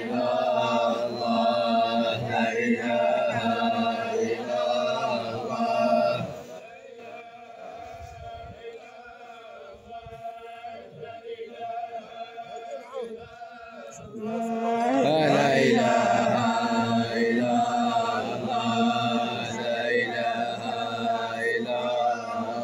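A large group of men chanting a religious funeral chant together in unison, in long drawn-out phrases. The chant drops to a quieter passage about six seconds in and swells again at about fifteen seconds.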